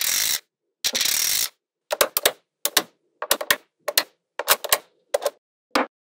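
Small neodymium magnetic balls clicking together: a quick rattling run of balls snapping on one after another for the first second and a half, then single sharp clicks, often in pairs, as pieces snap into place.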